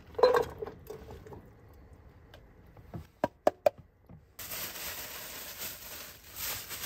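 Chopped vegetables tipped from a ceramic bowl into a metal frying pan, with a clatter just after the start and a few sharp knocks about three seconds in. From about four seconds in, a plastic bag rustles and crinkles steadily as it is emptied into the pan.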